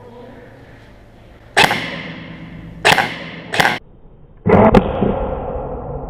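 Airsoft guns firing: four sharp, loud reports about a second apart, the last a quick double with a longer ringing tail.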